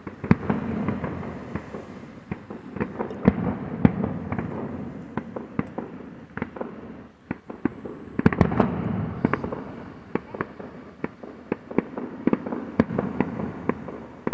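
Fireworks going off: many sharp bangs and crackles, some in rapid runs, over a continuous rumble, with heavier volleys a little after the start and again about two thirds of the way through.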